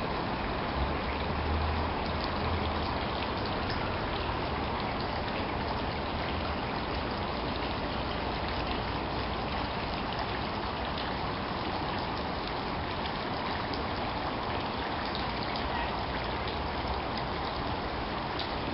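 Courtyard fountain water splashing and trickling steadily into its stone basin, with a brief low rumble a second or two in.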